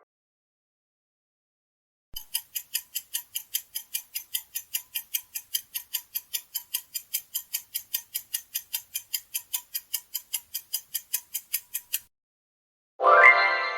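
Clock-ticking countdown timer sound effect: about four sharp ticks a second for some ten seconds, then it stops. About a second later a bright chime rings out.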